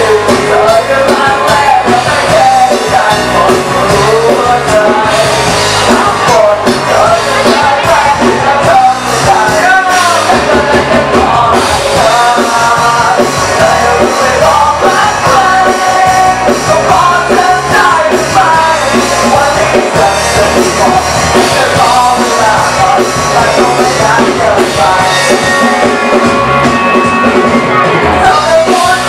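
A live rock band playing loudly: a singer with electric guitar, bass guitar and drums.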